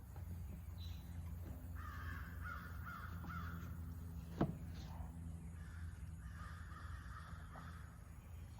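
Two spells of harsh animal calls, each lasting a second or two, over a steady low hum, with a single sharp click about four seconds in.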